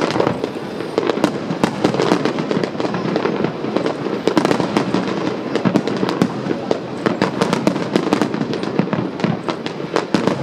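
Fireworks display going off in rapid succession: a dense, unbroken run of bangs and crackles with no pause.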